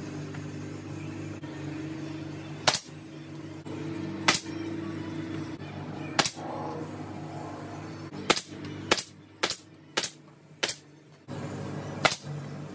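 Pneumatic nail gun firing nails into plywood, nine sharp cracks: three spaced a couple of seconds apart, then a quicker run about every half second, and one more near the end. A steady low hum runs underneath.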